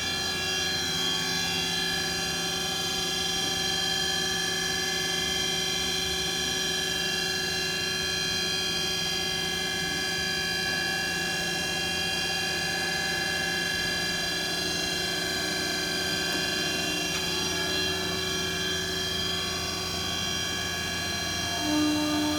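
2006 Mighty Viper VMC2100 vertical machining center running a program: a steady machine whine made of many held tones at an even level. About twenty seconds in, a new, stronger low hum starts.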